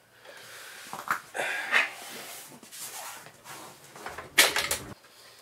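A PCIe card scraping and knocking against its slot and the metal case as it is pushed and worked into place, with a cluster of sharp clicks near the end as it seats.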